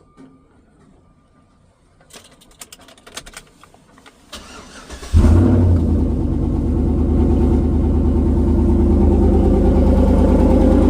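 2008 Chevrolet Silverado engine: a few light clicks and rattles, then about five seconds in the engine catches abruptly and settles into a steady idle.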